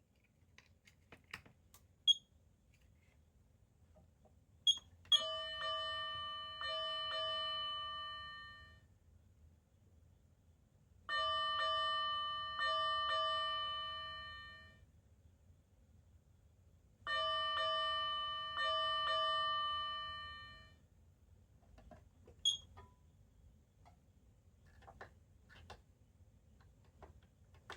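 Electronic bell tone from a fire-engine siren amplifier, rung in three bursts of several strikes each, every strike dying away before the next. A few sharp clicks fall between the bursts.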